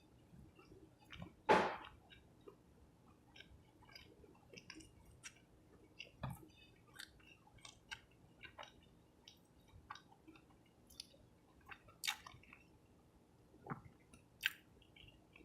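A person chewing food close to the microphone, with many soft, wet mouth clicks and smacks. A sharper, louder sound comes about a second and a half in, and a few more come near the end.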